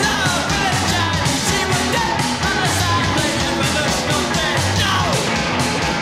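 Punk rock song: distorted guitars and pounding drums under yelled vocals.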